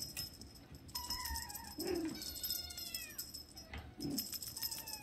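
Six-week-old Siamese/Balinese kitten meowing: three high, thin meows, each falling in pitch, about a second in, in the middle and near the end.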